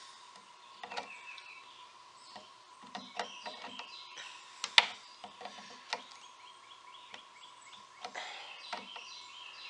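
Scattered sharp metal clicks and ticks as pliers grip and twist a snapped-off steel screw out of a wooden chair joint, with one loud click a little under halfway through. Birds chirp in the background over a faint steady hum.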